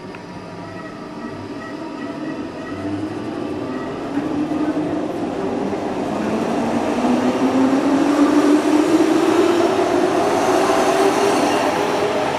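Berlin S-Bahn Class 480 electric multiple unit pulling away and accelerating along the platform. Its traction drive gives a whine that rises steadily in pitch and grows louder as it gathers speed.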